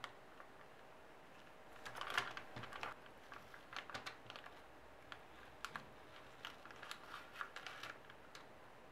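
Masking tape being peeled off the back of fused Hama beads: faint crackling and rustling about two seconds in, then scattered light clicks of fingers on the plastic beads.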